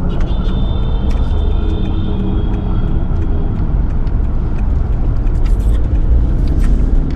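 Road noise heard inside a moving car's cabin: the engine and tyres running steadily, with a low rumble, a few light clicks, and a faint high tone for the first few seconds.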